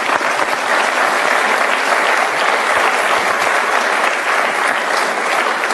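Studio audience applauding, a steady dense clapping that eases off slightly near the end.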